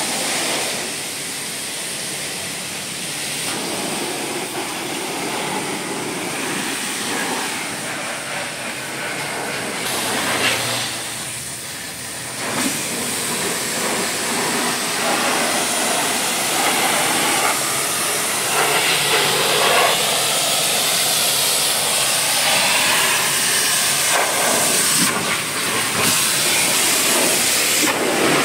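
Shaggy wash mitt scrubbing thick foam over a car's paintwork: a continuous wet swishing rub that shifts with the strokes, over a steady high hiss.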